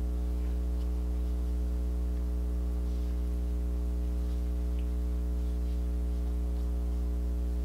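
Steady electrical hum with a stack of evenly spaced overtones, unchanging throughout.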